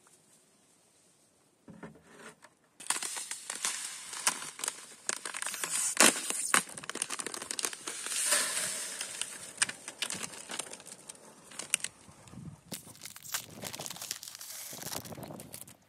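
Plastic packet of citric acid crystals crinkling in gloved hands and being torn open, with sharp crackles, starting about two to three seconds in. Later the crystals pour with a rustling hiss into a plastic tub.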